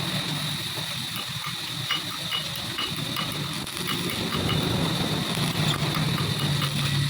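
A machine running steadily, a low hum with a thin high whine over it, and scattered light ticks throughout.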